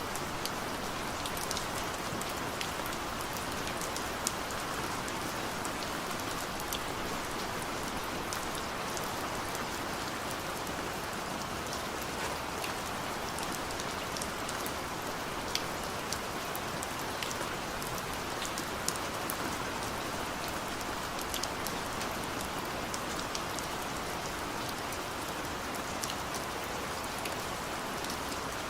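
Steady rain falling, an even hiss with scattered sharp drip ticks of individual drops.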